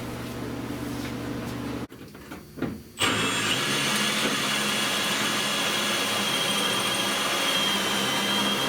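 Drill with a Blair spot weld cutter bit cutting into car body sheet steel to drill out a spot weld: a steady hum stops about two seconds in, and about a second later the cutting starts, an even grinding noise with a steady high whine over it.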